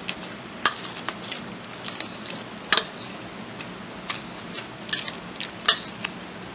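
Wire masher mashing sliced strawberries in a stainless steel bowl: irregular metal clinks and taps as the wire strikes the bowl, the loudest a little under three seconds in and again near six seconds.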